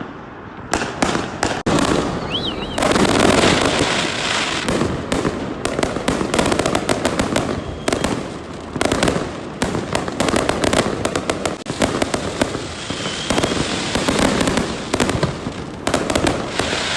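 Many fireworks and firecrackers going off at once: a dense, unbroken crackle of bangs and pops, with a short wavering whistle about two seconds in.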